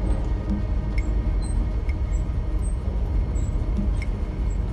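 Steady low engine rumble of a boat's machinery space below deck, with a few faint clicks now and then.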